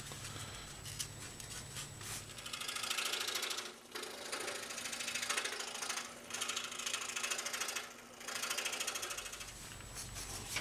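Scroll saw cutting channels in 1/8-inch Baltic birch plywood, played back sped up. It makes a fast mechanical chatter in bursts of one to two seconds with short breaks between them.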